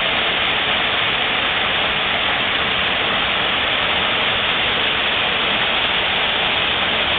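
Waterfall in a landscaped garden pool: water falling and splashing in a steady, dense rush.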